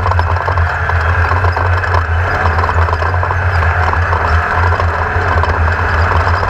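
Engine of a Class 1600 off-road race buggy, an air-cooled 1600 cc VW flat-four, running steadily under load, with a constant rapid rattle and clatter over it.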